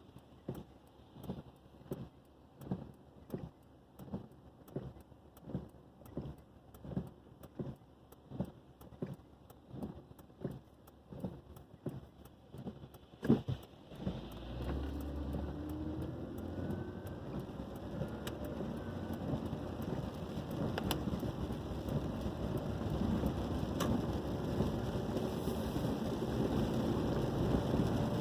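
Regular soft pulses about every 0.7 seconds, then a sharp knock about 13 seconds in. After the knock comes a steady rain-like hiss with a low vehicle rumble that slowly grows louder.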